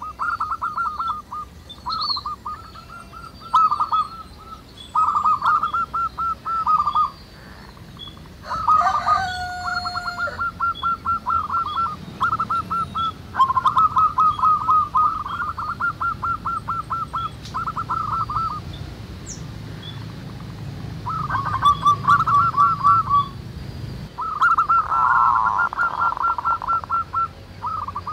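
Zebra doves (perkutut) cooing, several birds answering and overlapping in phrases of fast, rhythmic short notes, with fainter chirps of other small birds above them. A brief harsher call breaks in about nine seconds in.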